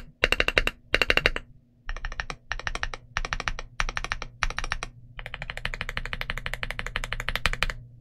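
Typing on an Ajazz AC067 mechanical keyboard with CIY Asura tactile switches on an aluminium plate and dye-sub PBT Cherry-profile keycaps. The keys clack in short bursts, then in a steady run of fast typing from about five seconds in.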